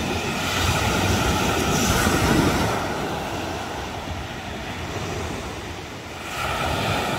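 Small waves breaking and washing over a shingle beach, swelling to a peak about two seconds in, ebbing away, then swelling again near the end.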